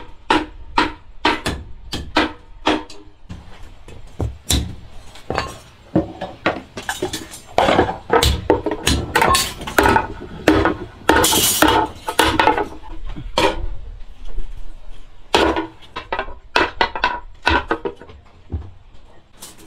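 Irregular run of knocks and clinks from hard objects being struck or handled. Some ringing tones sound through the middle.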